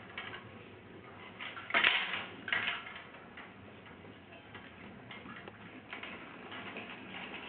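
Clicking and clinking of hanging metal objects, with two louder rattling clatters about two and two and a half seconds in.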